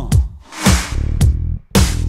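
Recorded country-pop music with no vocal: a punchy drum beat over deep bass notes, briefly dropping out about half a second in and again near the end.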